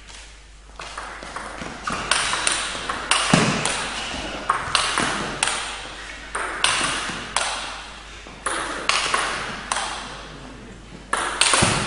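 Table tennis rally: the ball clicking sharply off the rackets and the table in quick alternation, about two to three hits a second, each hit echoing briefly in the hall.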